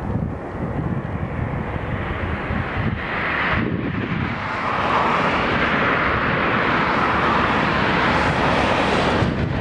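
Jet noise from a landing Boeing 777-200ER airliner. It grows louder and brighter about halfway through and drops off sharply near the end, with wind buffeting the microphone underneath.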